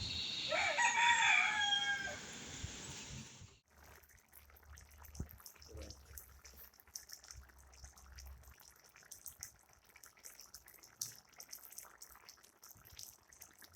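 A rooster crows once, a single call of about two seconds near the start. The sound then cuts off suddenly, leaving only faint scattered ticks and clicks.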